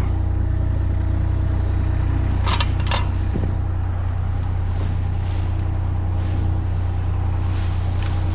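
Excavator's diesel engine running steadily, with two sharp knocks about two and a half and three seconds in.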